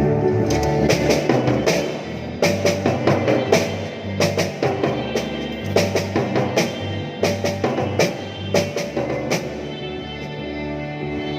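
Music with a drum kit playing over held bass and keyboard-like notes, with the sharp drum hits clustered between about two and nine seconds in.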